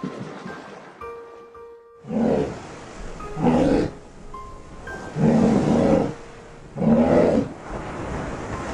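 An animal calling four times in short, rough, loud calls, each lasting about half a second to nearly a second, over faint background music.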